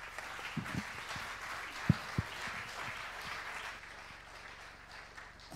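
Audience applauding, the clapping thinning out toward the end, with two sharp thumps about two seconds in.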